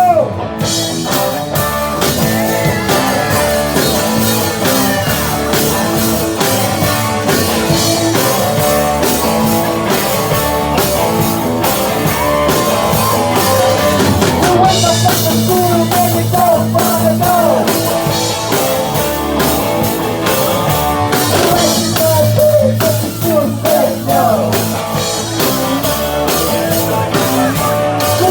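Live rock band playing a song, with a singer over electric guitar, bass and drum kit.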